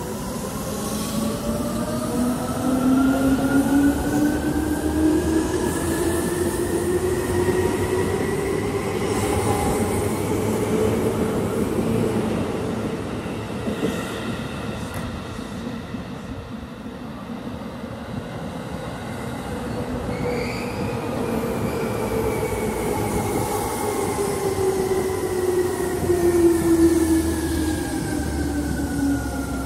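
Yellow Seibu electric commuter trains at a station platform. First a train's motor whine rises steadily in pitch as it accelerates away, with wheel and rail noise. Later in the clip another train's whine falls in pitch as it slows coming in.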